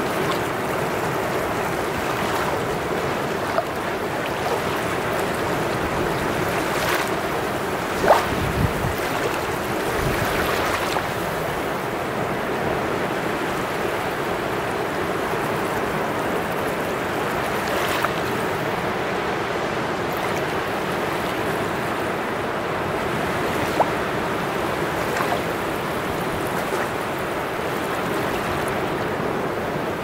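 Small sea waves washing up and running back over wet sand at the shoreline in a steady rushing wash, with a few brief sharp ticks from the water.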